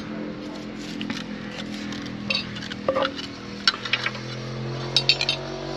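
Spanners clinking and knocking against a bare tractor engine block, with a few sharp metal taps, most of them in the second half. Under them runs a steady low humming drone that drops slightly in pitch near the end.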